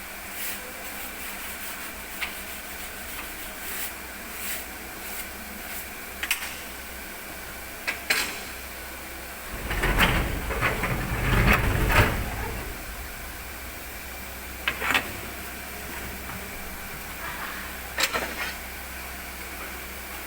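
Boat-building shop noise during deck welding: a steady hiss with scattered sharp metallic knocks, and a louder rough burst lasting about three seconds near the middle.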